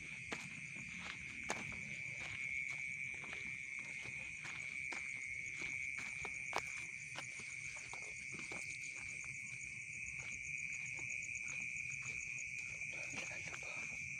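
Night-time insect chorus: a steady high-pitched trill, with a faster pulsing trill higher above it. Scattered faint clicks run through it.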